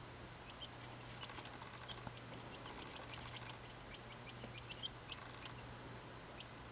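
Quail chick peeping: many short, high peeps in quick runs, over a low steady hum.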